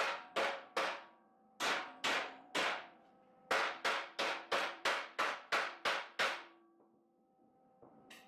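Hammer blows on steel in three quick runs, about two to three strikes a second, some fifteen in all, with short pauses between the runs.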